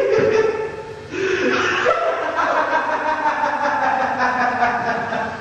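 A man laughing and chuckling in bursts, with a short break about a second in.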